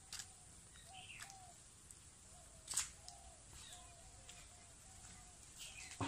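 Birds calling faintly: a short low note repeated about twice a second, with a few higher chirps that glide downward. A single sharp click comes about halfway through.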